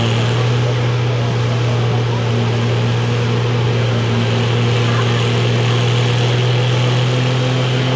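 Oliver farm tractor engine running steadily under load while pulling a tractor-pull sled, holding one low, even pitch.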